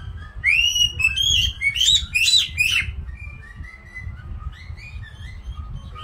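White-bellied caique chirping: a quick run of loud, high chirps and short whistled glides from about half a second in until about three seconds, then softer, sparser chirps.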